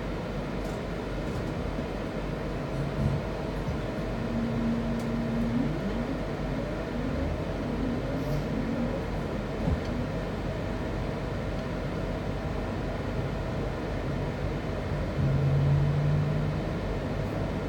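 Class 323 electric multiple unit running along the line, heard from on board: a steady rumble of the train in motion, with short electric hums from the traction equipment that shift in pitch, a louder one near the end.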